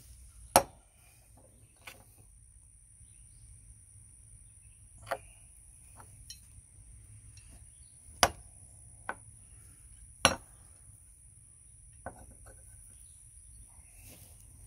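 Sharp metal clinks and knocks, one every few seconds, as a hot forged branding iron is handled and set on a wooden stump; the loudest comes about half a second in. Insects shrill steadily in the background.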